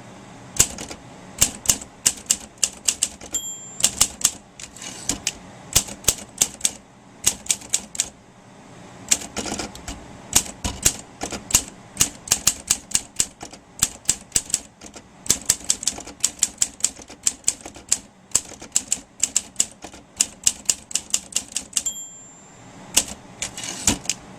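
Olympia SM3 De Luxe manual typewriter being typed on: quick runs of sharp key and typebar strikes with short pauses. Its margin bell rings twice, once a few seconds in and again near the end, as the carriage nears the end of a line.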